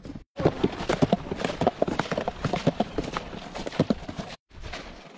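Metal butter churn slung on ropes from a wooden tripod, rocked back and forth and knocking in quick, uneven thuds as milk is churned for butter.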